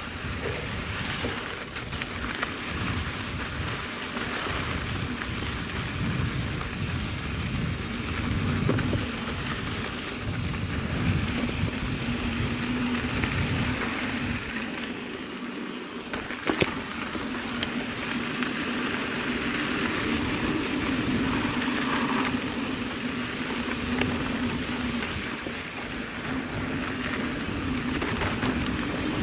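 Wind buffeting the microphone over the rumble of mountain bike tyres rolling on a dirt trail, with one sharp knock a little past halfway.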